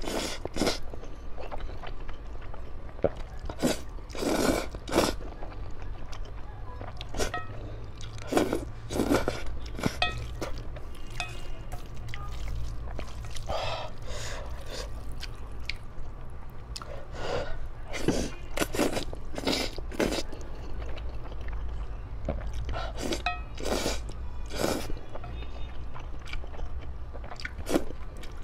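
Close-up eating sounds of spicy instant noodles: loud, irregular slurps of noodles being sucked up, each lasting a fraction of a second, with chewing between them.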